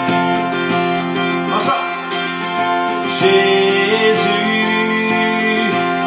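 Acoustic guitar strummed steadily, accompanying a man singing a slow worship song in long held notes.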